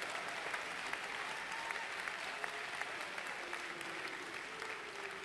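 Audience applauding: dense clapping that slowly fades.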